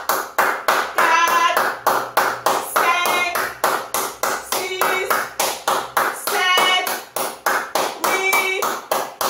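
A person clapping hands in a steady rhythm, about three claps a second, with a short voiced call or chant repeating about every two seconds.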